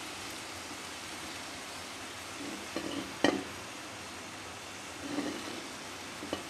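Chopped vegetables tipped from a plate into a pressure-cooker pot: soft thuds as they land, with a sharp clink of the plate against the pot's rim about three seconds in and a lighter one near the end, over a steady hiss.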